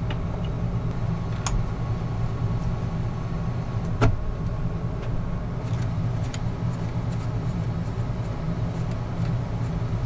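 A steady low mechanical hum, like a motor running, under a few sharp clicks and knocks from hands working connectors and wiring behind the helm panel; the loudest click comes about four seconds in.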